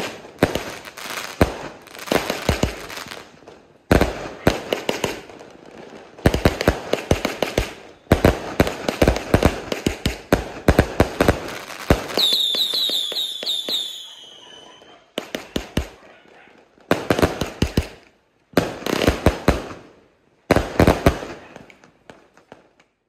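A 168-shot cake firework firing volleys of sharp bangs with crackling between them. About twelve seconds in, a cluster of whistles falls in pitch. After that come shorter separate volleys with brief pauses between them.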